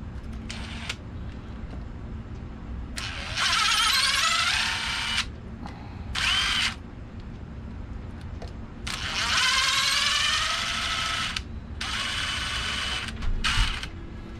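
Cordless power screwdriver whirring in about five short runs, its pitch rising as it spins up, backing screws out of an RC truck's chassis.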